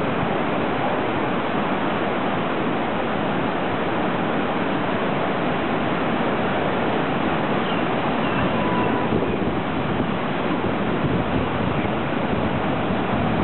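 Steady noise of breaking surf in rough seas, with wind on the microphone.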